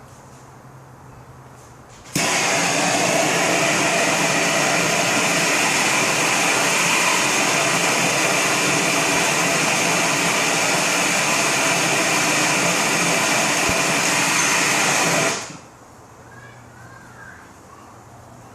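Handheld gas torch flame hissing steadily for about thirteen seconds, starting abruptly about two seconds in and cut off sharply near the end. It is heating a soldered copper pipe joint so the solder softens and the fitting can be pulled apart.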